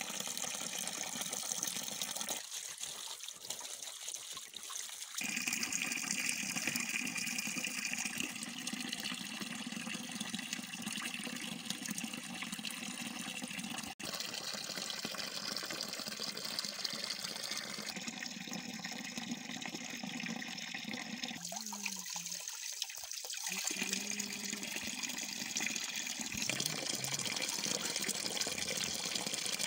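Running water of a stream: a steady rushing, its tone changing abruptly several times.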